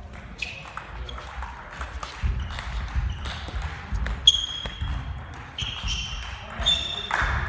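Table tennis balls clicking and pinging off tables and bats from several tables in play, an irregular run of sharp ticks with a short high ring, the loudest about four seconds in. Voices murmur in the background.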